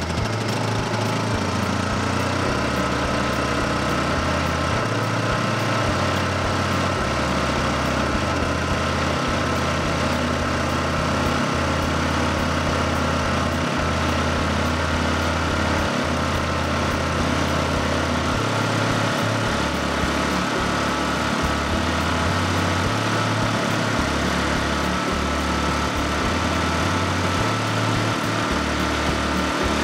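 Small Honda inverter generator's engine running steadily, its side cover removed so the engine is exposed.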